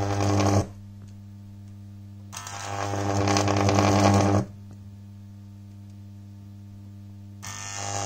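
High-voltage arcs from a microwave oven transformer (about 2.3 kV) burning between two screw tips, a buzzing, hissing crackle over the transformer's steady mains hum. One arc cuts off abruptly just after the start, a second grows louder from about two to four and a half seconds in before breaking off, and a third starts near the end. Between the arcs only the transformer's steady hum remains.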